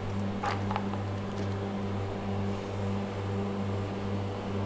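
Steady low hum of a refrigerator running, with a couple of faint light ticks about half a second in.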